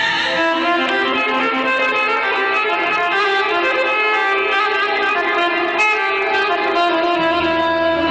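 Live folk band playing an instrumental passage: long-necked plucked lutes and a small accordion carry a steady melody, with no singing.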